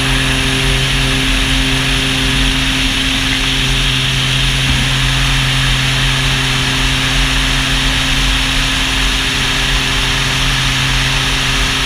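Epic single-engine turboprop with a Raisbeck swept-blade propeller running at full takeoff power, a steady drone with several held tones over a loud rush of air, through the takeoff roll, liftoff and initial climb of a max-weight short-field takeoff.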